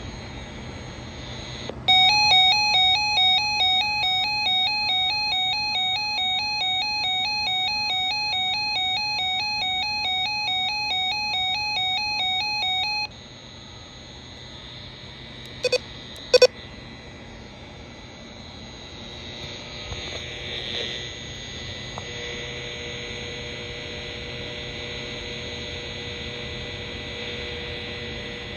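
Emergency alert tone on a NOAA Weather Radio stream, alternating rapidly between two pitches for about eleven seconds. It cuts off suddenly and the stream falls to dead air: a low hum, two short clicks, then a faint steady tone in the last few seconds.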